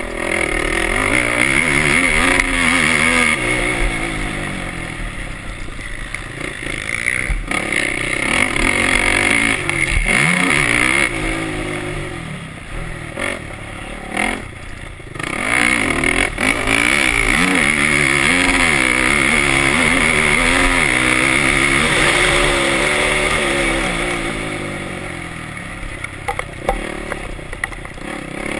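Motocross bike engine heard on board while racing, revving hard up and down as it accelerates, shifts gear and rolls off the throttle. It eases off twice, around the middle and again near the end, before picking up again.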